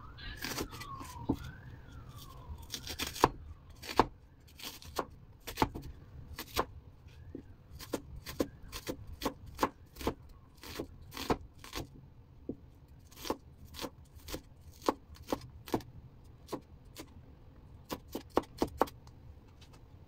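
Large kitchen knife dicing an onion on a bamboo cutting board: sharp knocks of the blade on the board, irregular, one or two a second, with quick runs of several strokes near the end. A faint wailing tone rises and falls in the first two seconds.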